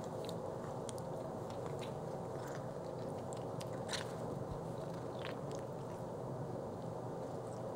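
Soft, scattered mouth clicks of licking and chewing from a pet cat and a flat-coated retriever, over a steady low hiss, with one sharper click about four seconds in.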